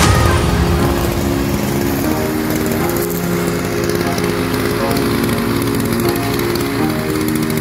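A 50cc off-road gas scooter's small engine idling steadily, with music underneath.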